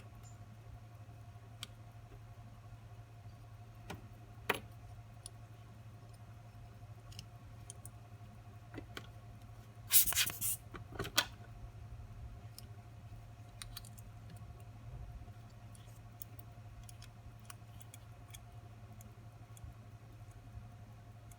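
Sparse small metallic clicks and taps of watchmaker's tools and parts during assembly of a pocket watch movement, with a short run of louder clinks about ten seconds in, over a steady low hum.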